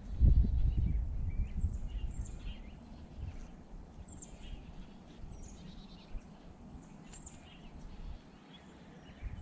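Small songbirds chirping with many short, high call notes. A low, uneven rumble is loudest in the first second and a half, then fades.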